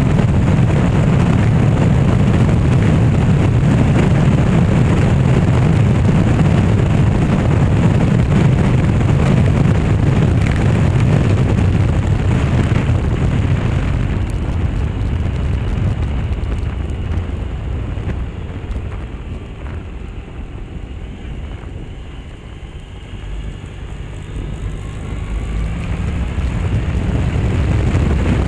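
Wind rushing over the microphone of a handlebar-mounted action camera on a moving motorbike, with engine and road noise underneath. It eases off about halfway through, then builds again near the end.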